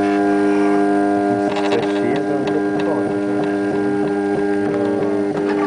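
Latex 3D printer running: a steady hum of several fixed pitches. Through the middle, whines that waver up and down in pitch and a few light clicks come in as its print head moves.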